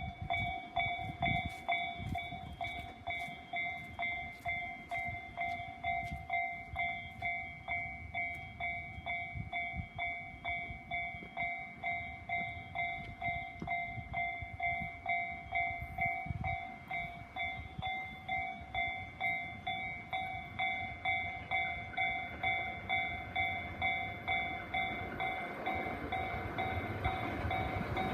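Japanese level-crossing warning bell ringing in a steady, repeating 'kan-kan', about two strikes a second, signalling an approaching train. Near the end the rumble of the oncoming train grows under the bell.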